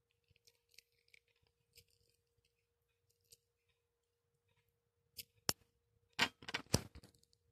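Hands handling things at a table: faint scraping and rustling, then a quick cluster of sharp clicks and knocks about five seconds in, over a faint steady hum.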